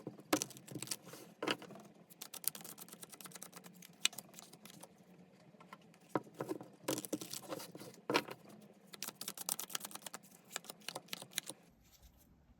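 Tarot cards being shuffled and handled, quick runs of crisp clicking and flicking card sounds that come in several spells, over a faint low hum.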